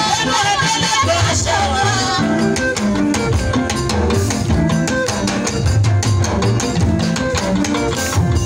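Live band music with drum kit, quick steady percussion and a stepping bass line; a sung melody is heard in the first two seconds, then the music carries on instrumental.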